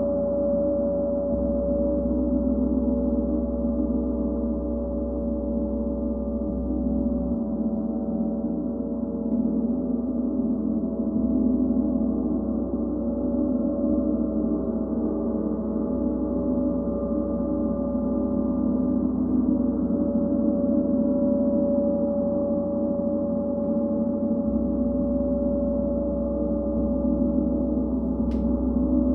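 Gongs ringing in a continuous, even wash of many overlapping sustained tones, with no single strike standing out.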